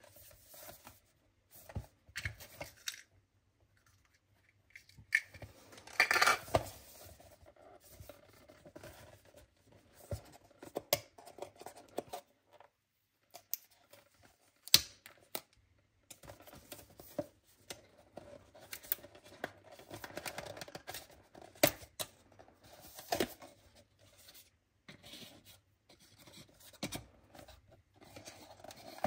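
Unboxing sounds: packaging being handled, scratched and torn open by hand, with scattered sharp clicks and taps at irregular intervals.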